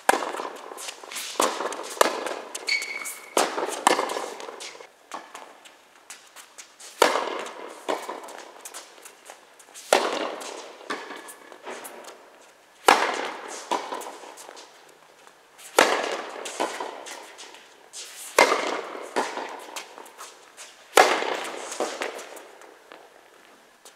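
Tennis rally: a series of sharp pops as rackets strike the ball, with lighter ball bounces in between. The biggest hits land every two to three seconds, each echoing in a large indoor hall.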